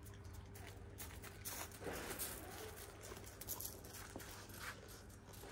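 Footsteps crunching irregularly on loose gravel, starting about one and a half seconds in.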